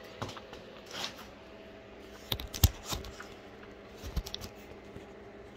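Phone being handled and repositioned close to its microphone: a series of scattered knocks, taps and rustles, the loudest a sharp knock about two and a half seconds in.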